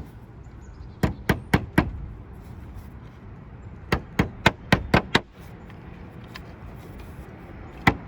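Hammer strikes in quick groups: four in fast succession about a second in, five between about four and five seconds, and one more near the end.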